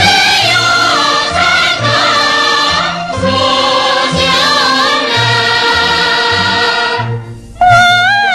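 A chorus sings a Chinese folk-style song over instrumental accompaniment. About seven and a half seconds in, after a brief dip, a solo female voice comes in loudly on a held, wavering note.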